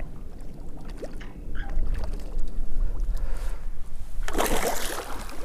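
Low wind noise on the microphone over lapping water around a wader. About four and a half seconds in, a short splash as a landing net is dipped into the water toward a hooked carp.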